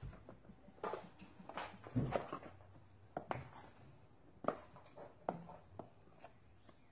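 Flour scooped with a plastic spatula out of a plastic bag into a bowl of cake batter: scattered soft taps, scrapes and bag rustles, some eight or nine in all.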